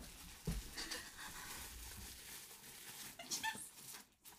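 Faint, wordless, high-pitched whimpers and squeaks of excitement from a woman overcome with delight, a few short ones about three seconds in, with a soft low thump near the start.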